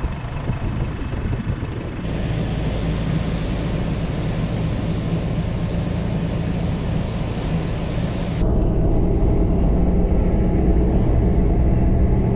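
A four-wheel-drive ute driving on beach sand: engine and tyre noise. From about two seconds in, wind rushes through an open window inside the cab. From about two-thirds of the way in, a louder, steady engine drone with a low hum takes over.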